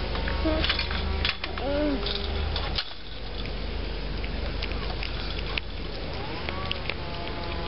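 A cat chewing soft pumpkin flesh close up: scattered short wet clicks and smacks, most of them in the first few seconds, over a steady low hum.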